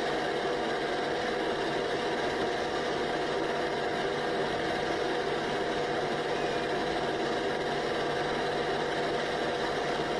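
8mm film projector running with a steady mechanical whirr and hum.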